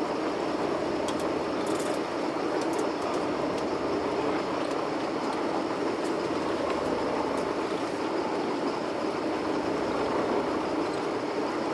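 A sport-fishing boat's engine running steadily, an even rumble with no change in speed, with a few faint ticks in the first few seconds.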